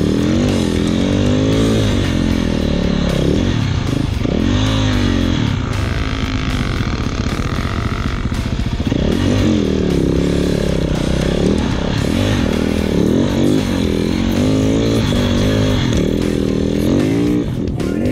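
Snow bike's dirt-bike engine revving up and down as it rides through deep powder, the pitch rising and falling every second or two with throttle changes.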